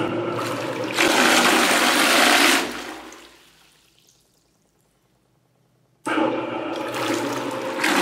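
Water churning and swirling in a homemade bucket washing machine as its 24-volt motor spins the agitator. It comes in two spells: the first dies away to near silence about three seconds in, and the second starts suddenly about six seconds in.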